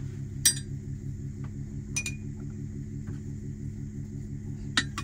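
A metal spoon clinking against a stainless steel pot three times, the first about half a second in and the loudest, over a continuous low hum with a regular pulse.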